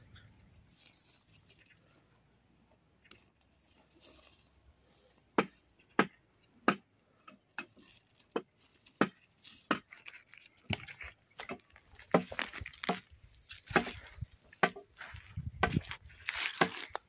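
Dry brushwood being snapped and handled. After a few quiet seconds come sharp single cracks about every two-thirds of a second, then a denser crackle and rustle of dry thorny brush.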